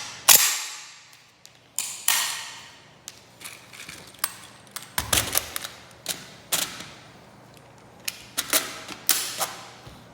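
Sharp metallic clicks and clacks from a Yugoslavian M72 RPK's steel parts being worked by hand just after reassembly, each strike ringing briefly; about ten of them come at uneven intervals, the loudest near the start.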